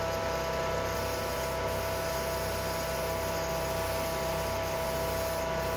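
Wall-mounted extractor fan running steadily: an even air rush with a steady hum and whine, joined by the hiss of an acrylic spray-paint can being sprayed onto a 3D-printed aileron.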